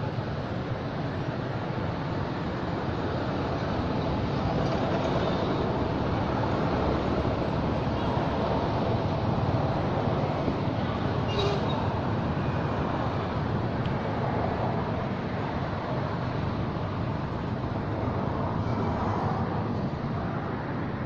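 Steady rushing outdoor background noise with no distinct events, with one faint click about eleven and a half seconds in.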